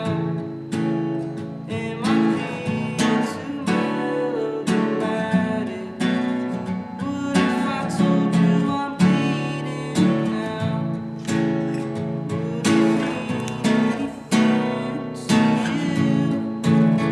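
Acoustic guitar strummed in a repeating chord pattern, played live.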